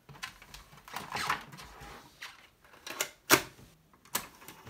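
A run of sharp plastic clicks and knocks as connectors are plugged in and the piano-key buttons of a Commodore Datassette cassette deck are pressed. The loudest click comes a little after three seconds in.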